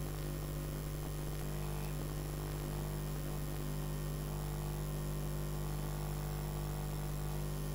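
Steady electrical mains hum, a low even drone with a faint hiss above it.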